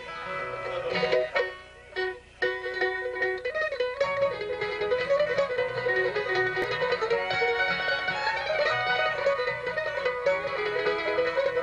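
Live bluegrass band playing: fiddle, five-string banjo, mandolin, acoustic guitar and upright bass. The tune starts with a brief break about two seconds in, then the full band plays steadily.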